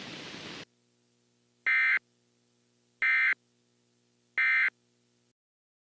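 Static hiss cutting off, then three short, identical digital data bursts about a second and a half apart: the Emergency Alert System's SAME end-of-message tones, signalling the end of the alert.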